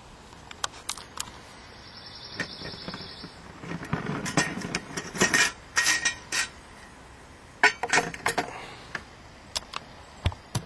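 Metal clinks, knocks and scrapes of small camping cookware and stove parts being handled, with a busier run of clattering about four to six seconds in and another short cluster near eight seconds.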